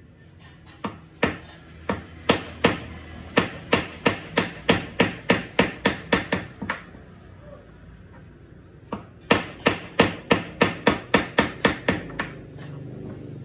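Small hand hammer tapping a 24-karat gold earring piece held in pliers on a small steel anvil: sharp metallic taps in two quick runs, about three a second at first, then a pause of about two seconds, then a faster run of about four a second.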